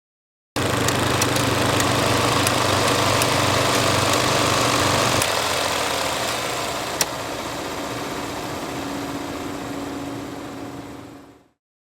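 Film projector running: a steady mechanical whirring with scattered sharp clicks. About five seconds in the low hum drops away and the sound gets quieter, with one loud click about two seconds later, then it fades out near the end.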